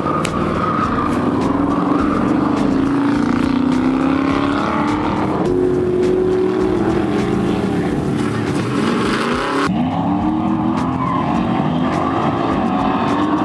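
Drag-racing cars' engines at full throttle, revving and accelerating hard down the strip, with pitch climbing as they pull away. The sound changes abruptly twice, about five and a half and ten seconds in.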